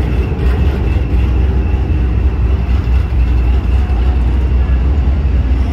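Truck engine running with a steady, deep rumble.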